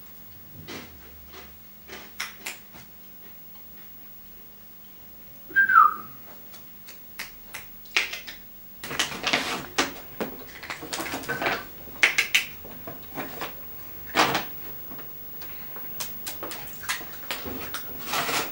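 Dry cat kibble being crunched and a plastic pet-food bag crinkling: scattered crackles at first, then thick rustling and crunching. About six seconds in, one short high cry falls in pitch, a cat's meow.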